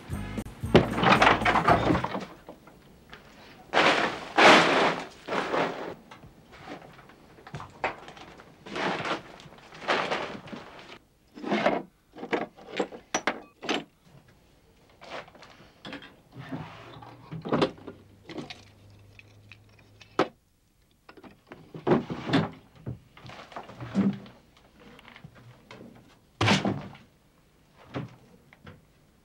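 An irregular series of wooden knocks, thunks and clatters as an old wooden door is pushed open and the doors and drawers of a worn wooden dresser are handled and things are moved about.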